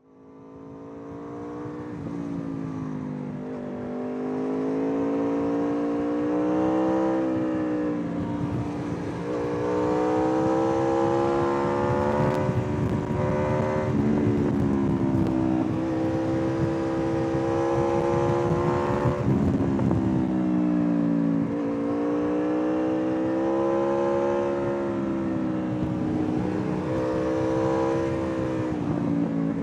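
Aprilia RSV4 R APRC's V4 engine pulling through the gears under a rider's hard riding: the pitch climbs as it revs up, then falls sharply at each upshift or roll-off, many times over. A rushing wind noise runs underneath.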